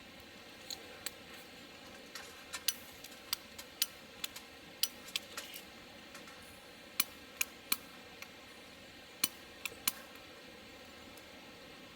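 Irregular sharp clicks and light clinks, about twenty of them, over a faint steady hiss.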